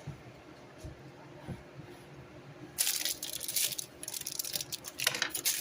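Crinkling of a cracker sleeve being handled and opened. It starts suddenly about three seconds in as a rapid, crackly rustle.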